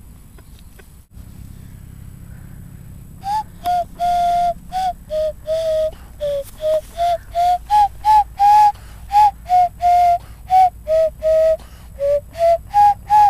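Wooden nose flute carved from a short piece of branch, played as a tune: a run of short, clear whistled notes that step up and down in pitch, starting about three seconds in.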